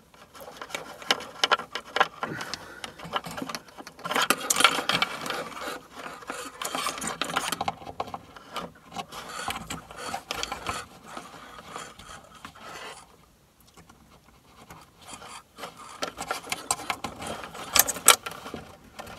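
Electrical wires with crimped spade connectors being handled and pushed around inside a plywood cabinet. The wires rub and scrape on the wood, with irregular small clicks and taps.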